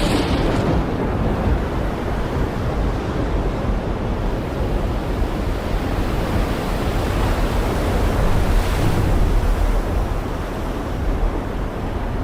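Heavy rain pouring steadily, a dense even hiss with a deep rumble underneath, and a brief sharper hiss right at the start.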